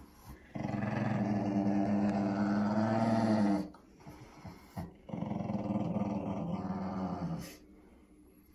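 Small Shih Tzu–Pekingese mix dog growling in two long, low, drawn-out stretches of about three seconds and two and a half seconds, with a short pause between, in protest at being bathed.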